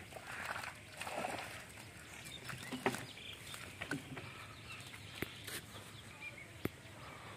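Cast net being dragged up a pond bank over dry leaves and grass, with caught fish flapping in the mesh at the water's edge. The sound is a rustle for the first second or so, then scattered sharp taps and light splashes.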